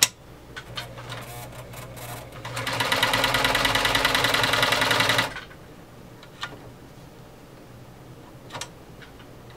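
Omega 307 sewing machine running under the foot controller, stitching through two layers of leather in a rapid, even run of needle strokes. It starts about two and a half seconds in and stops abruptly after about three seconds. A sharp click at the very start and a few light clicks before and after come from the machine and material being handled.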